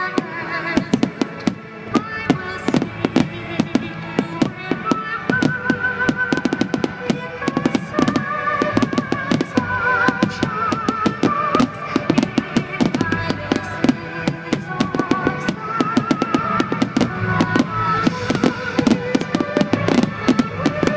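Fireworks bursting and crackling in rapid succession, dozens of sharp reports, over music with a wavering melody.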